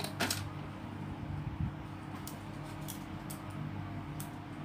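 Short plastic clicks of Lego pieces being handled and pressed together, about six in all with the loudest two in the first half-second, over a steady low hum.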